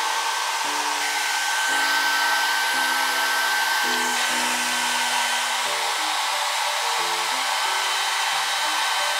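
Handheld electric hair dryer blowing steadily, a constant rush of air with a thin high whine from its motor.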